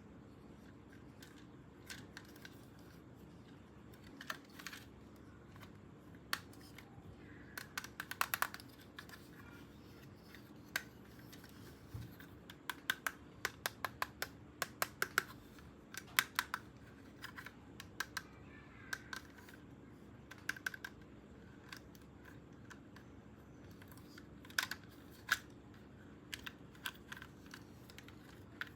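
Hands handling a toy's cardboard box and plastic packaging: irregular small clicks, taps and crinkles, some in quick clusters, with pauses between.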